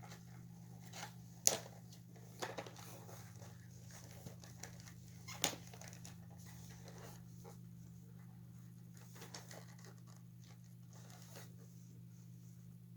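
Scattered small clicks, knocks and rustling from the parts of an animated toy figure being handled and pried apart during disassembly, over a steady low hum. Three sharper clicks stand out in the first half.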